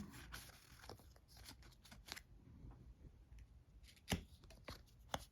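Faint handling of cardboard game cards: soft taps and rustles as cards are picked up and laid down, with a sharper tap about four seconds in and another near the end.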